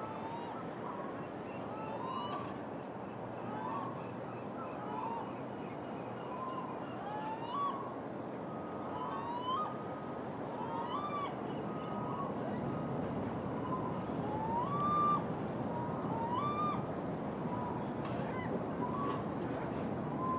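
Gulls calling over and over, short rising squealing cries about once a second, over a steady rushing background.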